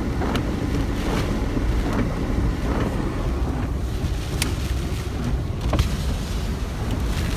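Strong hurricane wind buffeting the microphone: a steady, dense rumble with a few sharp ticks, about a half-second in, at four and a half seconds and near six seconds.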